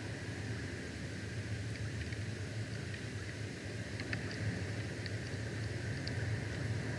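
Steady outdoor ambience from an eagle nest camera's microphone: an even hiss over a constant low hum, with a few faint, brief clicks, one about four seconds in.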